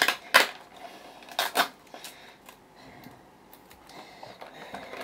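Mail packaging being handled and pulled apart by hand: a few sharp rustles and scrapes in the first two seconds, then softer rustling.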